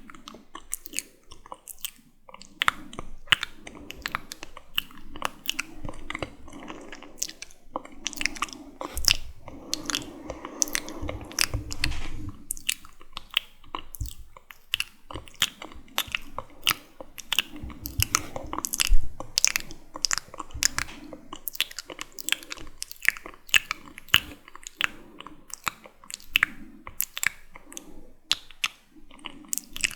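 Wet, sticky mouth sounds close to the microphone: rapid clicks and smacks of lips and tongue, several a second, with soft breathy patches between them.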